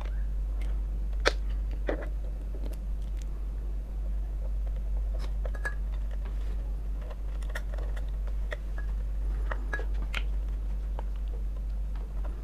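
Scattered light clicks, taps and scrapes of a screwdriver and small metal fittings being handled while a ceiling fan's motor housing and downrod are put back together, with a couple of sharper knocks in the first two seconds, over a steady low hum.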